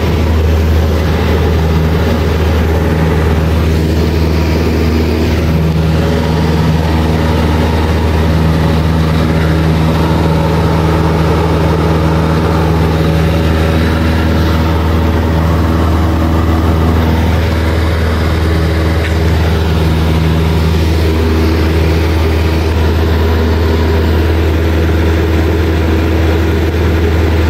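A Cessna light aircraft's piston engine and propeller at takeoff power, heard from inside the cabin as a loud, steady drone.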